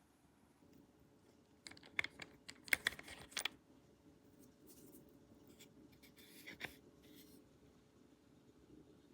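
Light handling noise: a quick cluster of clicks and scrapes about two to three and a half seconds in, and a few more around six and a half seconds, over a faint steady background.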